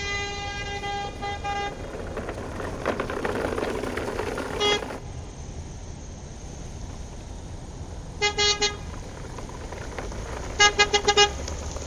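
Vehicle horn honking: one long honk with brief breaks at the start, a single short toot, a double toot, then a quick run of about five toots near the end. A steady low rumble runs underneath.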